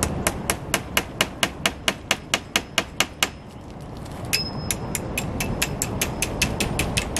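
Nails being hammered with the back of a hatchet, in quick even blows about four to five a second, in two runs with a short pause a little over three seconds in. The first blow of the second run leaves a brief ringing tone.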